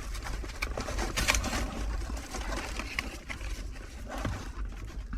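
Rummaging through rubbish in a dumpster: scattered rustles and light knocks of items being moved, over a steady low rumble.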